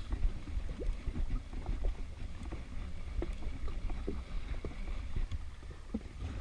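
Steady low rumble of wind and sea around a jet ski, with small irregular water slaps and faint knocks.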